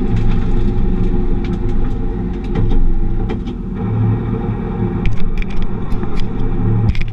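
Ford Fiesta Rally3's turbocharged three-cylinder engine running steadily at low revs, heard from inside the cabin. Near the end come several sharp clicks and knocks from a hand handling the in-car camera.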